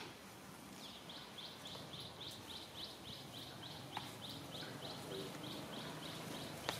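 A rapid series of short, high chirps from an unseen animal, about four a second, starting about a second in and stopping near the end, with a couple of sharp ticks among them.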